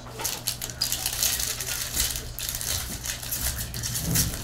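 Foil trading-card pack wrapper crinkling and tearing open in the hands: a dense run of quick crackles, over a steady low hum.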